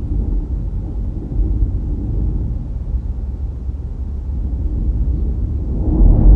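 Steady low rumble of a car driving, road and wind noise, growing louder about six seconds in.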